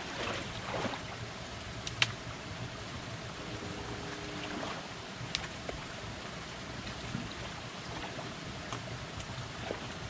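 Cut grass and brush being raked and dragged out of a shallow creek: steady rustling and water sloshing, with a few sharp clicks.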